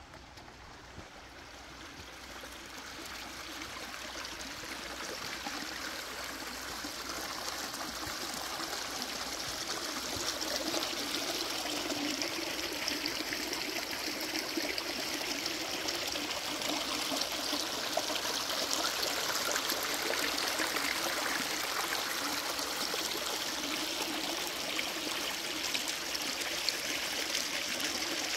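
Rushing creek water, a steady hiss-and-gurgle that grows louder over the first ten seconds or so and then holds steady.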